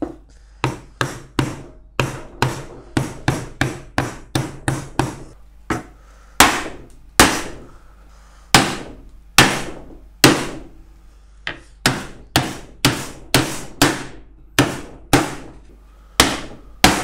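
A long series of hammer blows on a wooden block, knocking the comb-jointed wooden walls of a beehive brood body together. The taps come quickly at first, about three a second. Through the middle there are fewer, heavier blows, then quick taps again near the end.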